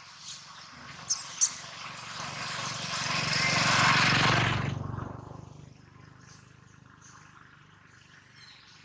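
A vehicle passing by: its engine and road noise swell to a peak about four seconds in, then fade away about a second and a half later. Two short clicks come just before it builds.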